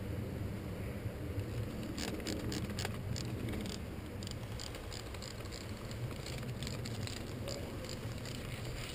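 Footsteps and rustling through dry leaf litter on a forest floor, with a cluster of crackling steps about two to three seconds in, over low rumbling camera-handling noise.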